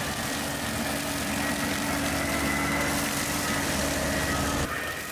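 Bobcat E45 mini excavator's diesel engine running with its hydraulic brush cutter head spinning and mowing brush and grass: a steady mechanical hum with a held whine. About four and a half seconds in, the sound changes abruptly and drops slightly in level.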